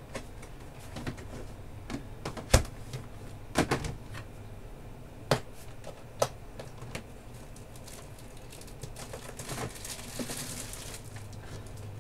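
Scattered knocks and clicks of 12-by-12 scrapbook storage tubs being taken down and handled, the loudest knock about two and a half seconds in, then a soft rustle near the end.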